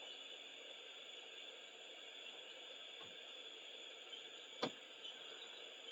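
Faint steady hiss of a small soldering torch flame, with one sharp click about four and a half seconds in.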